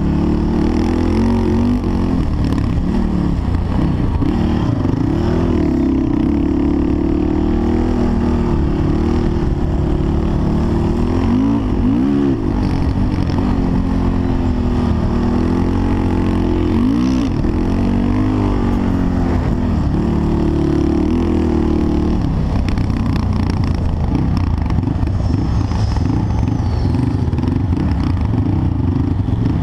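Off-road vehicle engine running hard while riding over sand, its pitch rising and falling with the throttle and briefly revving up sharply a couple of times.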